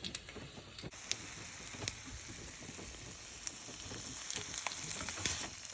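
Eggs frying in a pan on a stovetop: a steady sizzle with scattered small pops and crackles. A higher hiss comes in sharply about a second in.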